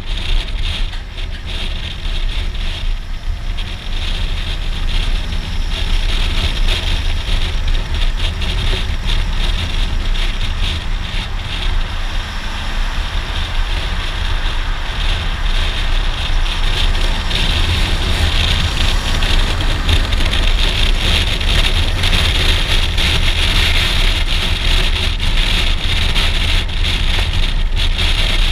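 Wind rushing over a helmet-mounted microphone, with the 645 cc V-twin of a Suzuki V-Strom DL650XT motorcycle running underneath. Steady throughout, a little louder after about four seconds.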